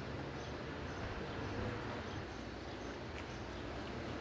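Quiet outdoor background: a steady low hum and faint hiss, with a few faint ticks.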